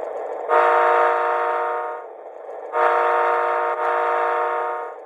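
MTH Loco-Sound diesel horn of an O-gauge SW9 switcher model sounding two long, steady blasts, each about one and a half to two seconds, over a steady background rumble. It is the horn sound that is judged in need of improvement.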